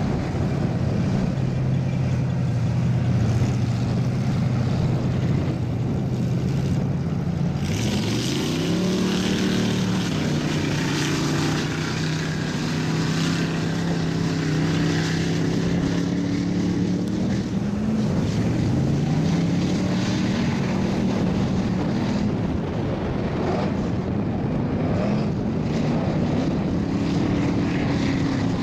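Mud truck engines running as the trucks drive through a flooded mud pit: a steady engine note for the first several seconds, then revving up again and again from about eight seconds in, with pitch rises through the middle and near the end.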